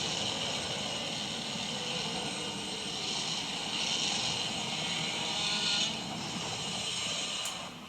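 Godzilla's roar sound effect from the 2023 film: one long, harsh, high-pitched roar with many stacked overtones, tapering off near the end.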